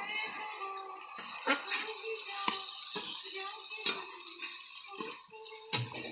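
Spatula stirring chicken curry in a metal kadai, scraping and clicking against the pan now and then over a steady sizzle of frying masala. A low steady hum starts near the end.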